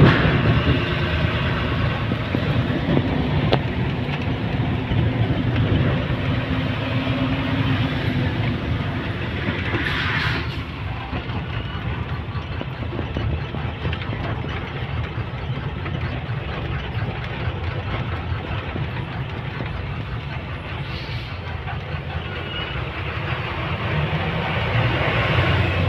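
Truck engine running and road noise heard from inside the cab as the truck moves slowly along a mountain road.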